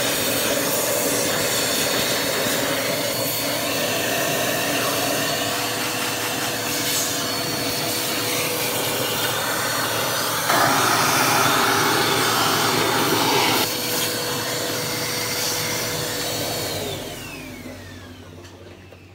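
Vacuum cleaner running steadily with a whine while dust is cleared out of a sewing machine, louder for about three seconds in the middle. About seventeen seconds in it is switched off and the motor winds down, its whine falling in pitch as the noise fades.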